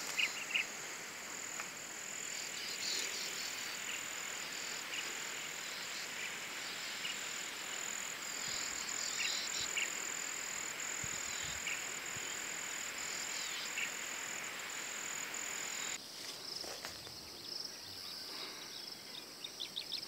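Insects droning on one steady high note over a faint outdoor hiss, with a few short chirps scattered through. The drone cuts off suddenly about sixteen seconds in.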